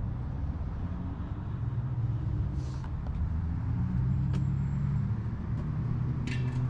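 A vehicle engine idling with a steady low hum, with a few light clicks and knocks over it.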